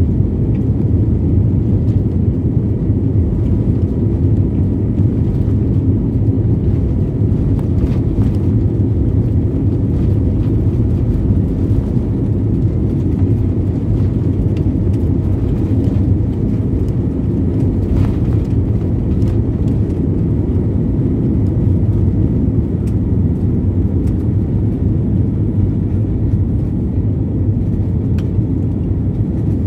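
Airbus jet's engines at takeoff thrust heard from inside the cabin during the takeoff roll, a loud, steady low rumble.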